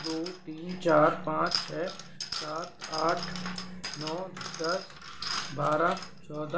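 Small plastic domino blocks clicking and clattering against each other and a wooden tabletop as they are tipped out and spread by hand. Short pitched voice-like notes, each bending upward, repeat in the background about twice a second.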